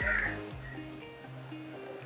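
Quiet background music of slow, held notes that change pitch every half second or so.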